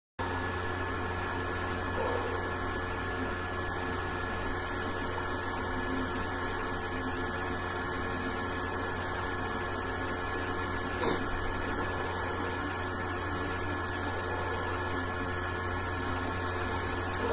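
Steady electrical hum with background hiss and a few constant tones, and one faint click about eleven seconds in.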